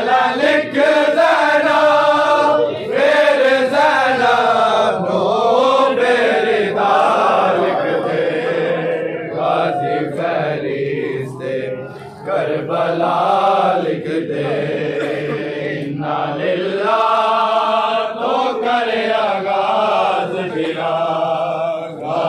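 A group of men chanting a Shia noha lament together in unison, the melody rising and falling in phrases with short breaks between them.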